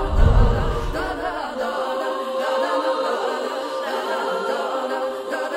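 Choral vocal music with a sustained note, opening with a deep boom that dies away over about a second.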